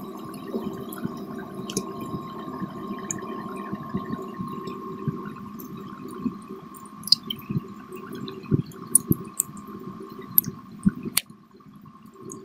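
Close-up chewing of fried breaded snacks (fish fingers and chicken cutlets): irregular crunches and mouth clicks, more frequent in the second half, over a steady low hum.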